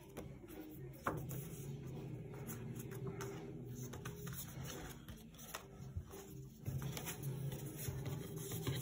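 Hands handling a cardboard CD digipak and its paper booklet: paper and card rustling as the panels are unfolded, with a few sharp clicks.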